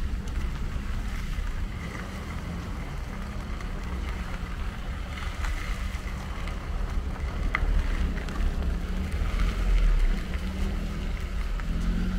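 Wind rumbling on the microphone, with the low, steady hum of a line of cars approaching slowly.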